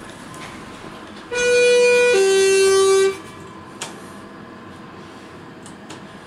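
Elevator arrival chime: two electronic notes, the first higher, the second lower, together about two seconds long, followed by a short click.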